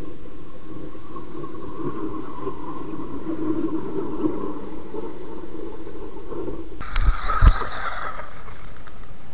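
Small electric RC buggy (WLtoys 12428 on stock electronics and a 2S LiPo) running over mud and snow, its motor and gearbox whining steadily and rising and falling with throttle. About seven seconds in come two short, loud low thumps.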